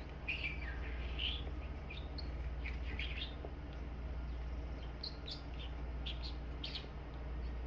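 A bird chirping in short, scattered calls over a steady low hum.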